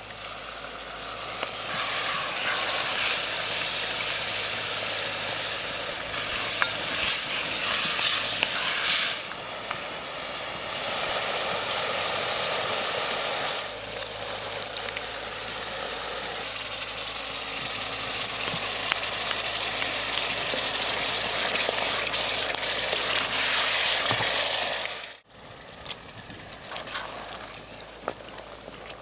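Food sizzling and frying in a hot pan, the sizzle swelling and easing several times. It drops suddenly near the end to a quieter sizzle with a few sharp clicks.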